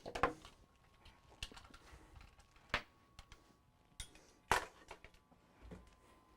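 Scattered light clicks and knocks, about six spread over several seconds, the loudest near the start and about two-thirds of the way through: PC parts and cables being handled.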